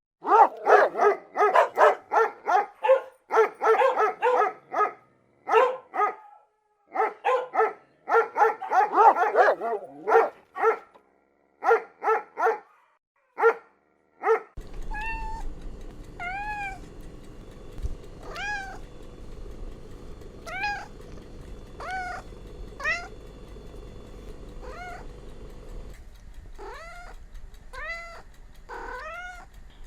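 Domestic cats meowing. First comes a rapid run of loud, pitched calls in quick groups. About halfway through the recording changes, and single arched meows, each rising then falling, follow every second or two over a steady background hum.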